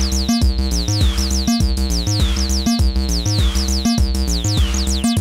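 Acid bass line from a modular synth: a VCO-3340 oscillator through a Din Sync VCF303 303-style resonant filter. Sequenced notes step up and down in pitch at about four a second, each with a quick falling filter sweep.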